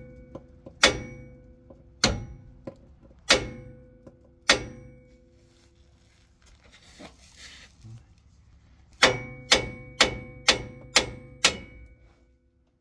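Small sledgehammer striking steel at the track bar's ball joint on a Ford F-250's front axle, to knock the tapered stud loose from its mount. First come four ringing metallic clangs about a second apart, then a pause, then six quicker blows about two a second near the end.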